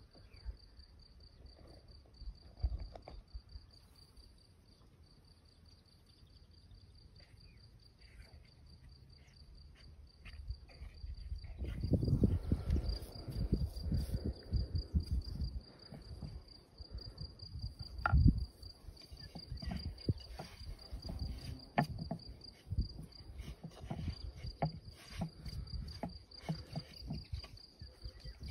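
A cricket trills steadily and high the whole time. From about twelve seconds in come dull thumps, knocks and scrapes of a spoon and hands working a stiff dough in a wooden bowl.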